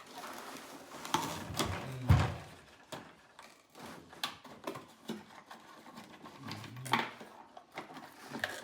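Scattered clicks and knocks from a battery-powered toy car being handled, with one louder thump about two seconds in.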